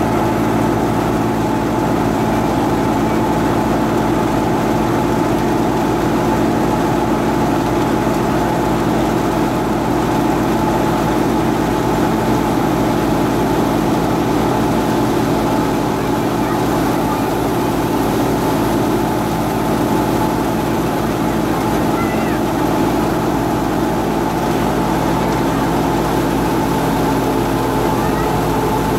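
Tractor-driven wheat thresher running at steady speed while cut wheat is fed into it: a loud, even mechanical drone with a constant hum that does not change.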